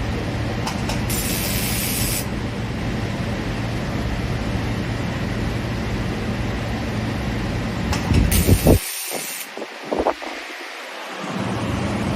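Laser welder firing two roughly one-second bursts of high-pitched hissing crackle as it welds busbars onto LiFePO4 battery cells, over a steady low factory rumble. A few knocks sound around the second burst.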